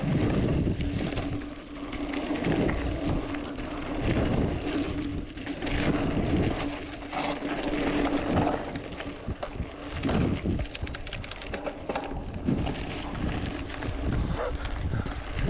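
Mountain bike rolling down a dirt trail: rumbling tyre and wind noise with uneven swells and scattered rattles, and a steady hum through the first half.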